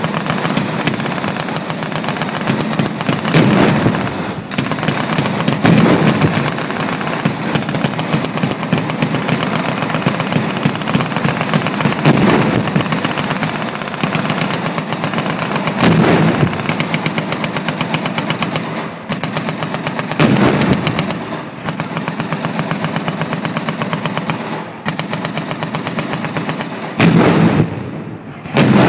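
Several vehicle-mounted machine guns firing together in long, continuous automatic bursts, joined by heavier booms every few seconds.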